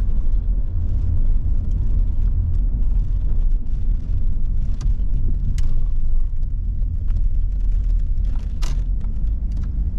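Volvo 740 GL driving: a steady low engine and road rumble, with a few short clicks about halfway through and again near the end.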